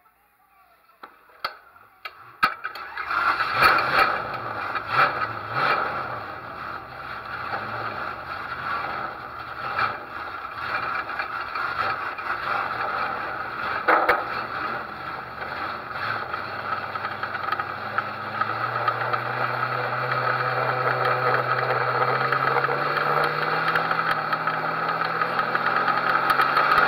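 Race car engine starting about two seconds in after a couple of clicks, then running unevenly at low speed; in the last third its pitch and loudness climb steadily as the car pulls away.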